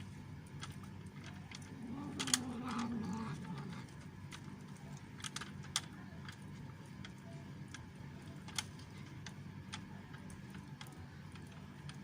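Cat eating: irregular crisp clicks of chewing, with one low, drawn-out growl about two seconds in that falls slightly in pitch over a second and a half.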